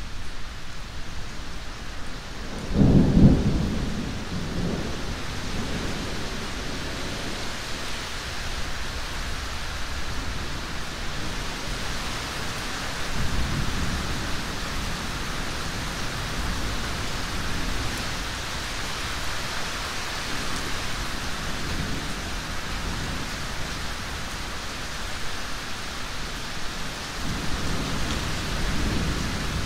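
Steady rain falling in a thunderstorm, with rolling thunder: a loud low rumble about three seconds in, and fainter rumbles near the middle and again near the end.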